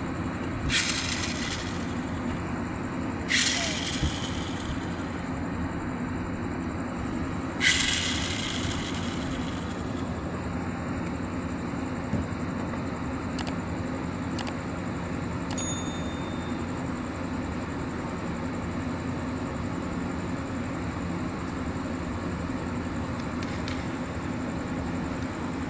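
Toy pull-back truck's spring motor whirring in three short bursts that start sharply and fade, over a steady low hum; a few faint ticks follow later.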